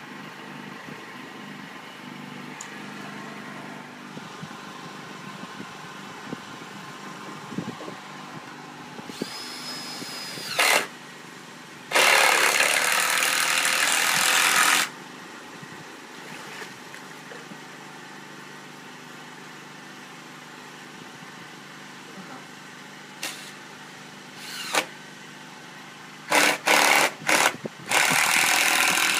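A power tool run in bursts: a short whine and burst, then a run of about three seconds, and several quick bursts before a longer run near the end. A steady engine hum sits underneath.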